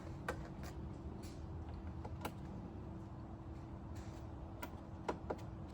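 Plastic push-pin retainers clicking as they are pressed into the Jeep's bumper and grille trim: a string of sharp, irregular clicks, the loudest a little after five seconds in, over a steady low hum.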